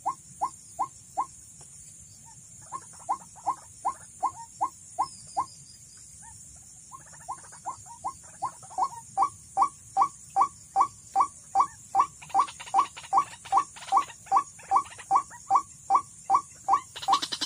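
White-breasted waterhen call: short, slightly rising notes repeated about three times a second in series, with two brief breaks. The calls grow louder after about nine seconds in.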